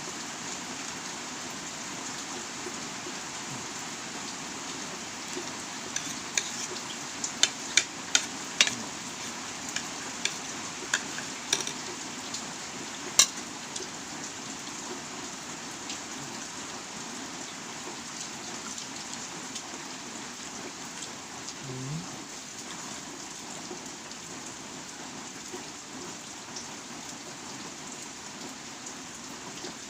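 Steady rain falling, with no wind. A run of sharp clicks and taps comes from about 6 to 13 seconds in.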